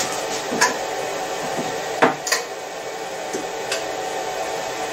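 Milling machine with a steady hum, with a few sharp metallic clicks and clinks over it.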